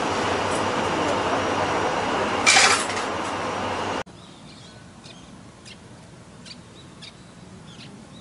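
Steady bus cabin noise, with a short loud hiss of air about two and a half seconds in. About four seconds in it cuts to quiet outdoor air with a few short bird chirps.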